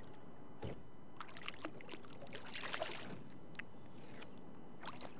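Hooked smallmouth bass splashing at the water's surface beside a kayak, in a cluster of short splashy bursts strongest in the middle, with a low thump under a second in and another splash near the end, over a steady background hiss.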